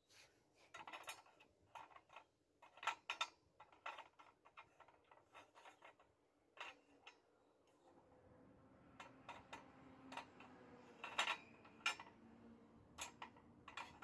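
Metal spoon clinking and scraping against a steel muffin tin as a small blob of molten aluminium is tipped into one of its cups: a run of light clicks and taps, with a faint steady hum coming in about halfway.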